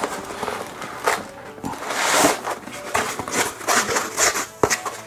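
Cardboard box handled and a foam packing insert slid out of its open end: scraping and rustling with several sharp knocks, and a longer scrape about two seconds in.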